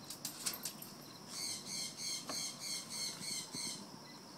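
Insects chirping in a quick, even run of short, high-pitched chirps, several a second, that starts about a second in and stops shortly before the end. A few faint clicks come at the start.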